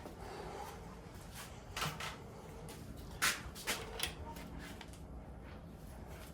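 A handful of short metallic clicks and knocks from hand tools working the bolts of a Honda D16 engine's main-bearing girdle, about five in all, loudest a little after three seconds in.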